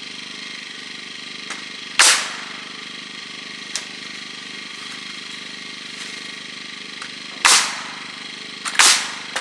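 Nail gun firing three separate shots, each a sharp bang with a short fading tail, about two seconds in and twice near the end. A steady engine hum runs underneath.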